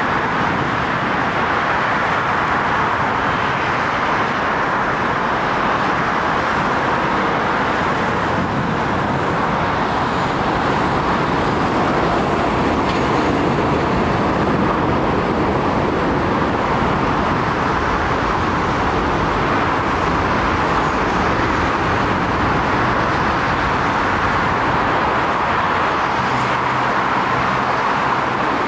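Steady, even rushing noise of passing traffic and a Korail electric commuter train running by, with no distinct wheel clicks standing out.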